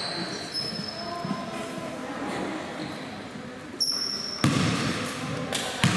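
Basketball bouncing on a hardwood gym floor, with two sharp bounces in the second half. Sneakers squeak briefly before them, and there is a low murmur of voices in the hall.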